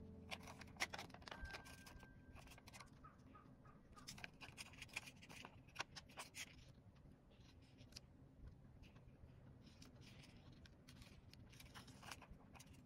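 Faint, irregular clicking and crinkling of a clear plastic sticker sheet being handled and worked with tweezers.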